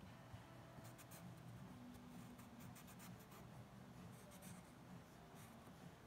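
Faint, on-and-off scratching of a felt-tip marker drawing short strokes on cardboard.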